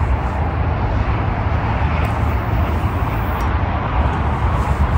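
Continuous rumble and hiss of motorway traffic, steady throughout with no single passing vehicle standing out.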